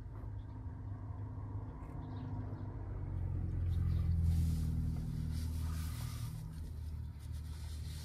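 Low vehicle rumble heard from inside a car. It swells to its loudest a little past the middle, with a hiss rising alongside it, then eases off.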